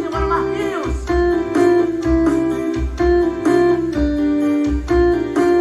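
Instrumental music break played loud on a paredão sound system: an electronic keyboard melody over a heavy, regular bass beat, with no singing.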